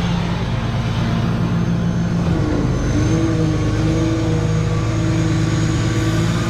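Tow truck driving, its engine running with a steady drone; the engine note shifts about two and a half seconds in.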